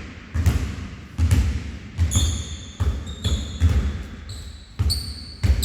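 Basketball dribbled on an indoor gym floor, about one heavy bounce every second, with several short high squeaks of sneakers on the hardwood in the middle of the stretch.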